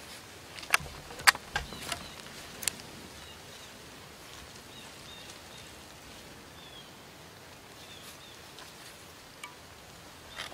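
Quiet outdoor ambience: a low steady hiss with a handful of sharp clicks in the first three seconds, and faint short high chirps later on.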